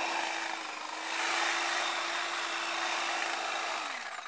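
Chainsaw running flat out, a steady whine as it cuts into a thick weed stalk. Near the end it is let off and winds down to a stop.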